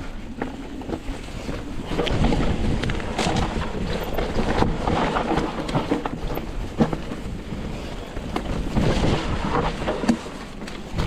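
Wind rushing over the microphone while a mountain bike descends a wet, muddy trail, with sharp knocks and rattles from the bike as it goes over rough ground.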